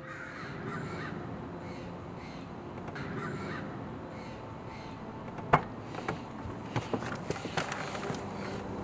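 Crows cawing again and again. About five and a half seconds in comes a sharp click as a car door is unlatched and opened, followed by several lighter clicks and knocks.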